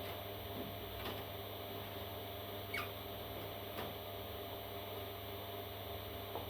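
A parrot chick gives one short squeak that falls in pitch, about three seconds in, over a steady low hum and a few faint clicks.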